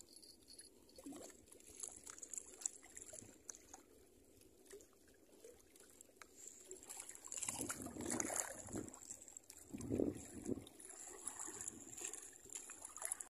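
Seawater lapping and sloshing among breakwater rocks on a rising tide, with a couple of louder washes in the second half and scattered small clicks.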